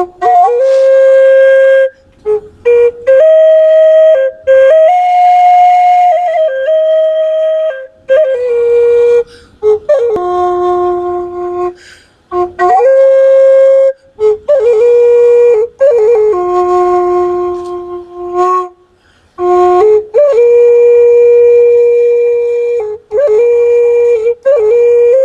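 A solo flute plays a slow melody in a single line. Its long held notes slide into pitch here and there, with short breaks between phrases.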